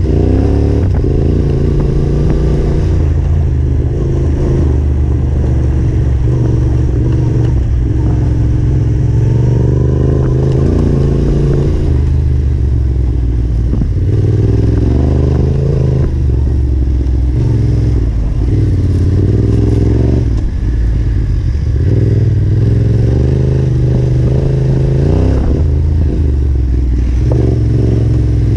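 Yamaha Ténéré 700's parallel-twin engine under way off-road, the revs rising and falling continually with throttle and gear changes.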